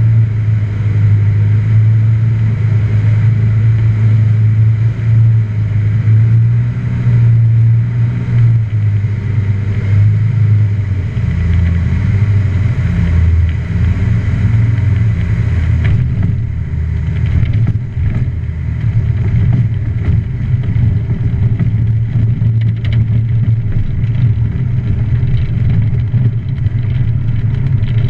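Just Aircraft Highlander's engine and propeller heard from inside the cockpit on landing: a steady loud drone whose note drops and roughens about eleven seconds in as power comes off. From about halfway through, rattles and knocks join it as the plane rolls out on the grass strip.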